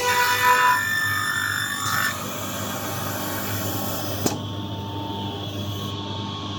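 Automatic edge banding machine running: a steady motor hum with the high whine of its cutter units, the whine changing about a second in and falling away around two seconds, and a single sharp click a little after four seconds.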